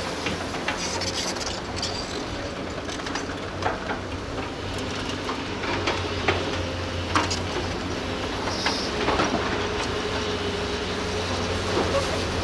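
Hydraulic crawler excavators' diesel engines running steadily under working load, with a thin whine that holds from about two-thirds of the way in and scattered sharp knocks and clanks as the buckets dig and dump earth into trucks.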